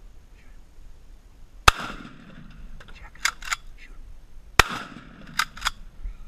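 Two gunshots about three seconds apart, each a sharp crack with a short echoing tail. Each shot is followed about a second later by a pair of quick, fainter clacks.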